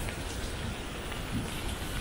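Steady hiss of rain, with a low rumble underneath.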